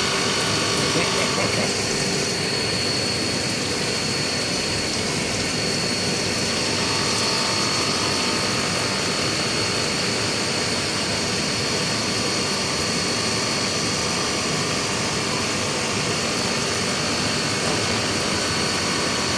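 Haas CNC mill running a coarse roughing pass in aluminum: a steady machining hiss with a constant high whine, and a lower tone that drops out about two seconds in and a different one that comes in near seven seconds.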